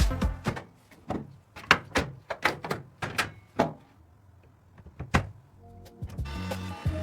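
A string of sharp clicks and knocks, spaced irregularly about half a second to a second apart, during a break in the music. Beat-driven music comes back in about a second before the end.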